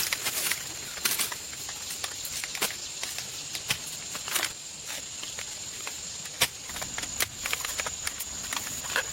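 Outdoor ambience: a steady high-pitched hiss with irregular sharp clicks and crunches scattered through it.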